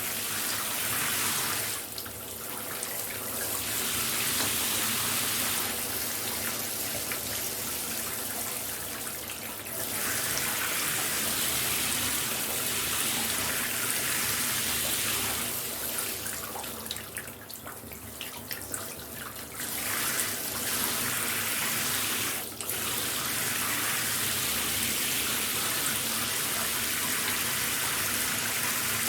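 Shower running: a steady hiss of water spraying and splashing, which dips and thins now and then, most clearly for a few seconds just past the middle.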